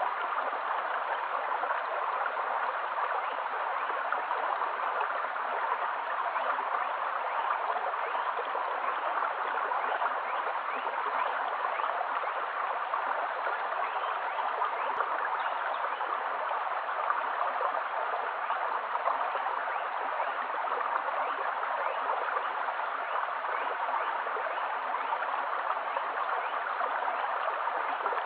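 Shallow stream flowing over stones: a steady, even rush of water flecked with many small bubbling splashes.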